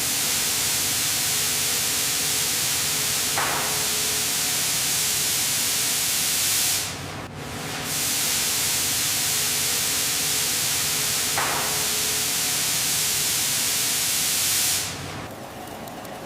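Loud, steady hissing of a jet of spraying air or gas, in two stretches of about seven seconds each with a one-second break between. It drops to a much quieter hiss near the end.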